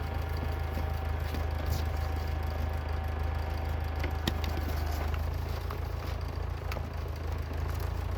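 The engine of a 1995 BMW E34 turning over with a steady, fast low rumble and a thin whine that cuts off about five seconds in, with a few light clicks.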